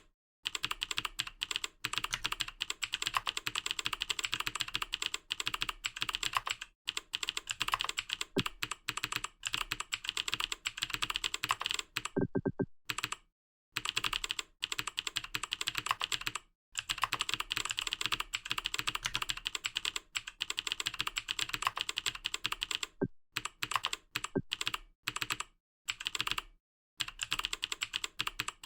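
Fast typing on a computer keyboard: rapid, dense keystrokes in long runs, broken by a few short pauses.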